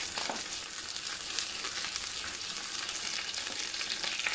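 Ghee sizzling steadily in a small pan with whole dried red chillies, curry leaves and green chillies, with fine crackles throughout: a tadka (tempering) being fried.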